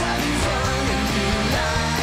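Rock band playing a three-chord rock and roll song, with guitar to the fore.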